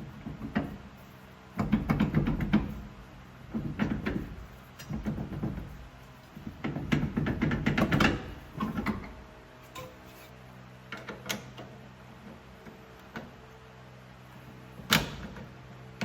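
Metal parts and hand tools clunking and clattering in irregular bursts as an old drum brake is taken apart, with a sharp knock near the end.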